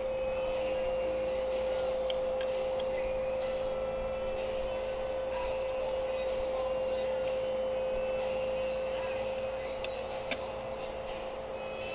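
A steady electrical whine at one pitch over a faint hiss, with a few faint ticks and a light click about ten seconds in.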